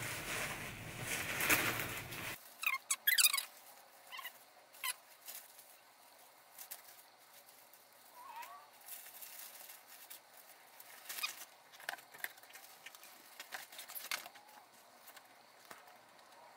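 Plastic wrapping rustling and crinkling for about two seconds as a hat umbrella is pulled from its packaging. Then come faint scattered clicks and a few short squeaks as the umbrella is handled and opened.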